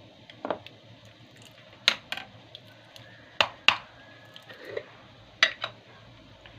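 Kitchen utensils and dishware clinking and knocking: about eight sharp, irregular strikes, the loudest a little under two seconds in and around three and a half seconds in.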